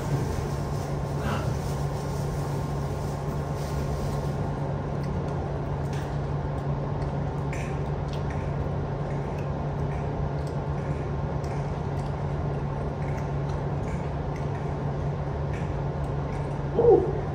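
Someone eating noodles with chopsticks from a cardboard takeaway box: faint scattered clicks and small eating sounds over a steady low background hum, with a brief louder sound near the end.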